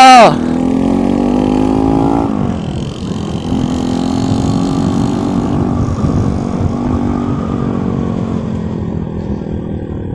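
Motorcycle engine under way, its pitch climbing for about two seconds as it accelerates, then dropping sharply and running on at slowly changing revs.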